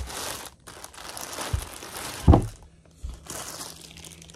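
Thin plastic bag crinkling and rustling as it is pulled off a 12-inch subwoofer. A few dull thumps come through it, the loudest about two and a half seconds in, as the heavy woofer is handled and set down on a carpeted table.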